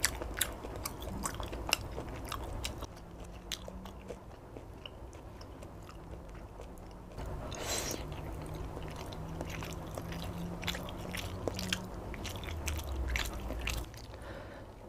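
Close-miked chewing and biting of chicken satay and compressed rice cake (nasi himpit), with many short wet mouth clicks throughout.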